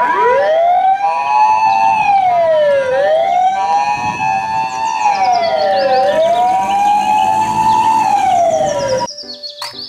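Japanese ambulance siren: the two-tone hi-lo "pee-poh" steps between two pitches, with a wailing siren rising and falling three times over it. It cuts off suddenly about nine seconds in.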